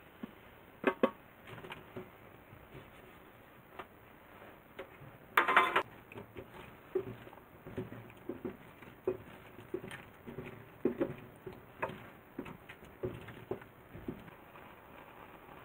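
Kitchen tongs knocking and scraping in a frying pan as diced nagaimo and nameko mushrooms are tipped in and stirred, in scattered light clicks and taps. A louder clatter comes about five seconds in.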